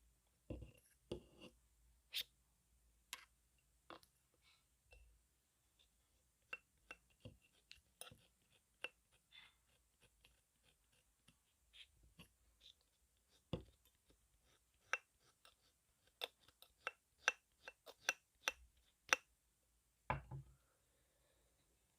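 Close-up ASMR tapping and clicking right at an earphone's microphone: irregular sharp clicks and light scratches, coming faster near the end, with a few dull thumps.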